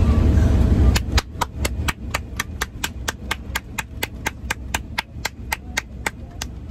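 One person clapping alone at a steady pace of about four claps a second, applauding an airliner's landing. A loud low rumble from the A380 cabin drops away about a second in, just as the clapping starts.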